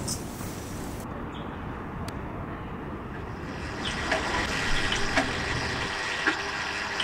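City street ambience: a steady hum of traffic noise, with a few short, faint chirps in the second half.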